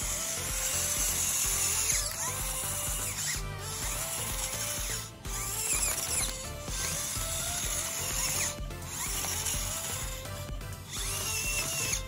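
Electric drive motor and gearbox of an RC crawler bulldozer whirring in short spurts as it moves, over background music.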